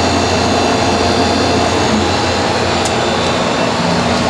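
Old Thomas A. Edison central air conditioner's outdoor unit running steadily: a low compressor hum under the even rush of the condenser fan's air.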